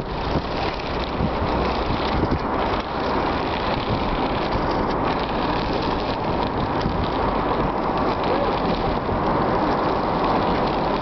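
Wind buffeting a microphone held out of a moving car's window, mixed with the car's road and tyre noise: a loud, steady rush.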